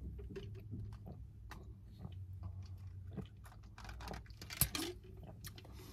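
Faint mouth and swallowing sounds: a dry scoop of pre-workout powder being worked down and washed back with gulps from a plastic shaker bottle. There are small wet clicks throughout and a sharper click about four and a half seconds in.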